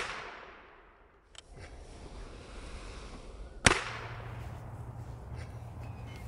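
Tape primer popping on a .54 calibre Greene twist-barrel carbine fired with no powder charge. A first pop is fading away at the start, a faint click comes about a second and a half in, and a second sharp crack, the loudest sound, comes a little past halfway.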